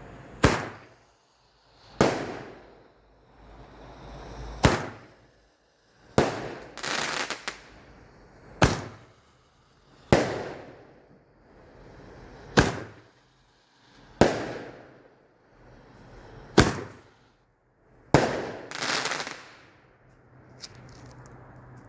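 Roman candles firing: about ten sharp pops, one every two seconds or so, each followed by a fading hiss as the ball is thrown out.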